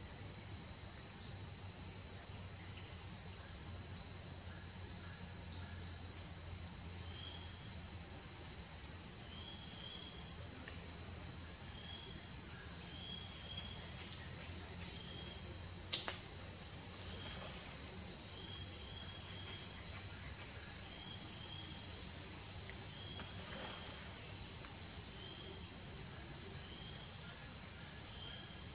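Loud insect chorus: a continuous, shrill high-pitched drone that holds steady without a break.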